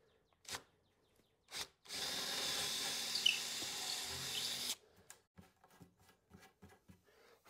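Power drill boring a quarter-inch hole in a wooden panel for a T-track bolt: two brief blips of the motor, then about three seconds of steady drilling that stops abruptly, followed by a few light clicks.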